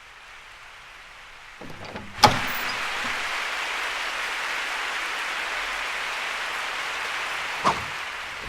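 A steady hiss that fades in, turns louder at a sharp click about two seconds in, and eases off slightly after a second, smaller click near the end.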